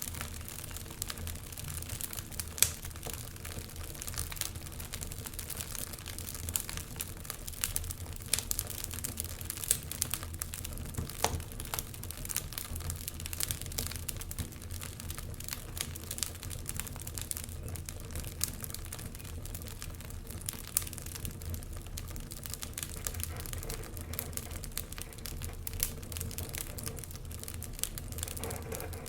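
Wood fire crackling, with frequent sharp irregular pops and one louder pop about two and a half seconds in, over a steady low rumble.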